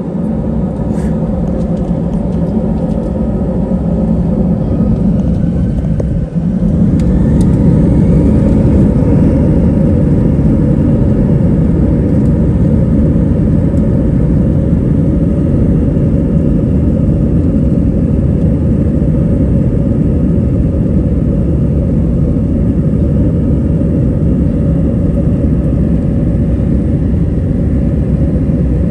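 Airbus A321 jet engines during takeoff: a whine rises in pitch over the first several seconds, then settles into a loud, steady, low rumble as the airliner runs at takeoff power.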